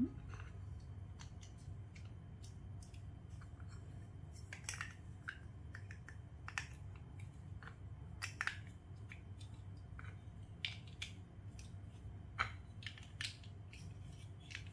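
Plastic LEGO Duplo bricks being handled and pressed together, giving scattered, irregular short clicks and knocks.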